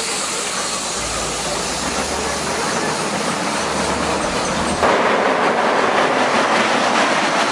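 A family roller coaster train rumbling and clattering along its steel track as it passes close by. It gets louder about five seconds in, with a rapid clatter of wheels on rail.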